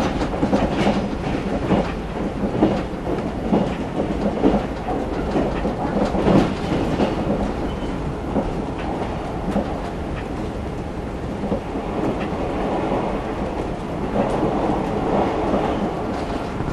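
JR 381 series electric train running at speed, heard from inside the passenger cabin: a steady rumble of wheels on rail, with frequent clacks over rail joints through the first half, then a more even run.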